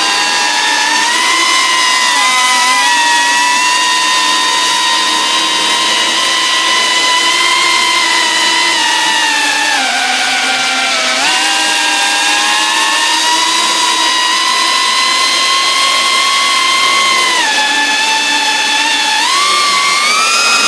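FPV whoop drone's motors and propellers whining steadily in flight, the pitch dipping and recovering a few times with the throttle and climbing sharply near the end.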